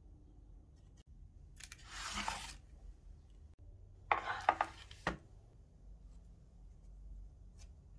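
Handling noise from a parchment-lined metal baking tray of cookies: two short bursts of rustling and scraping, the second crackly, ending in a dull knock about five seconds in.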